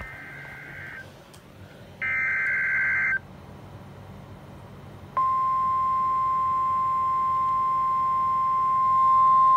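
NOAA Weather Radio Emergency Alert System alert: two harsh, screeching digital data bursts about a second long each (the coded alert header), then about five seconds in the long, steady single-pitch warning alarm tone begins, which announces a severe thunderstorm warning.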